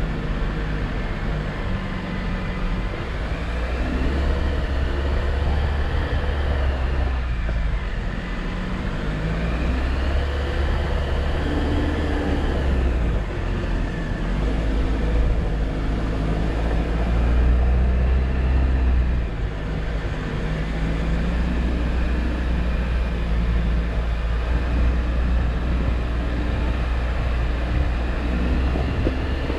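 Jeep Wrangler engine running as it drives an off-road trail, its pitch shifting up and down with the throttle. A higher whine rises and falls several times along with it.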